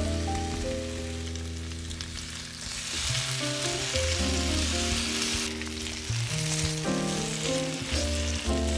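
Sliced raw potatoes sizzling in hot oil in a frying pan, the sizzle growing louder about three seconds in as they are stirred with a silicone spatula. Background music with sustained notes plays throughout.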